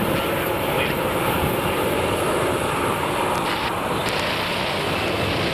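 Boeing 737 MAX 8's CFM LEAP-1B jet engines running at taxi power as the airliner taxis and turns close by: a steady, loud rush with a faint high whine.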